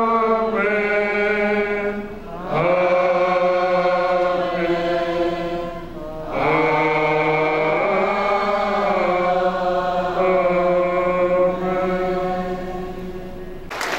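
An elderly man's solo voice chanting through a microphone in long held phrases of a few seconds each, with short breaths between; the last phrase fades away near the end.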